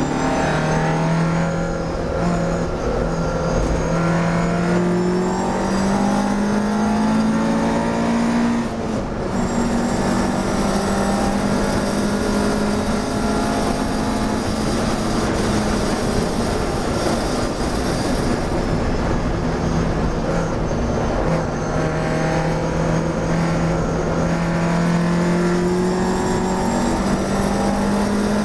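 Classic race car's engine heard from inside the cockpit, pulling hard under acceleration with the note climbing steadily. It drops at a gear change about nine seconds in, then climbs again over steady road and wind noise.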